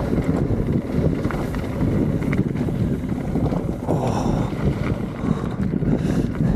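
Wind buffeting the microphone of a helmet-mounted camera as a mountain bike rolls down a dirt trail: a steady low rumble with a few small clicks and rattles from the bike.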